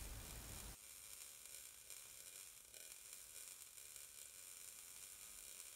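MIG (GMAW) welding arc running a downhill root pass on steel pipe with .035 hard wire and 75/25 shielding gas: a faint, steady hiss.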